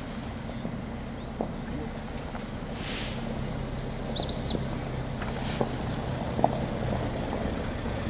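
Dog-training whistle blown about four seconds in, a short pip then a slightly longer high note, just as the dog picks up the retrieving dummy: the recall signal. A steady low hum runs underneath.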